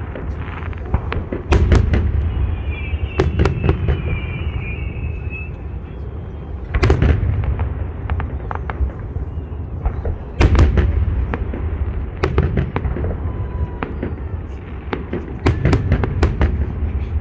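Fireworks salute: a series of bangs from shells bursting overhead over a continuous low rumble, with heavier booms about one and a half, seven, ten and a half and fifteen and a half seconds in, and lighter crackling pops between.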